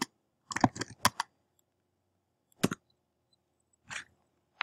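Computer keyboard keystrokes: a handful of separate key taps, some in quick pairs, spread across a few seconds, as a terminal command is typed.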